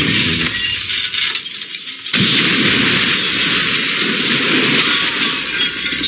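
Dense glass-shattering sound effects: breaking and shattering glass that thins out briefly, then comes back suddenly and loudly about two seconds in.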